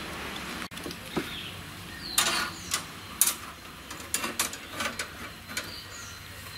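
A string of short, irregular knocks, clinks and scrapes from hands-on building work, such as steel rods and tools being handled. They start about two seconds in and come about a dozen times over the next few seconds.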